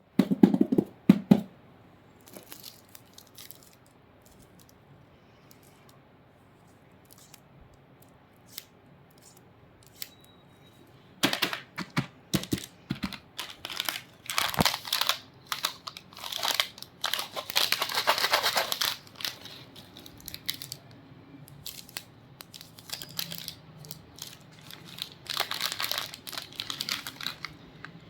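Plastic candy wrappers being torn open and crinkled, in runs of crackling and rustling with a quieter stretch of scattered clicks early on and the busiest crinkling about halfway through.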